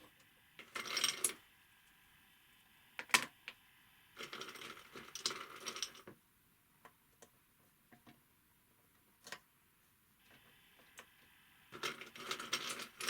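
Ice cubes clinking and rattling against the top plate of a small Stirling engine in a few short bouts, with single sharp clicks in between.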